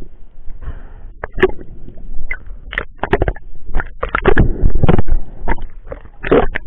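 Water splashing and sloshing around an action camera, with irregular knocks and handling bumps as a spearfisher surfaces and grips a speared fish. The noise is loudest about four seconds in, as he breaks the surface.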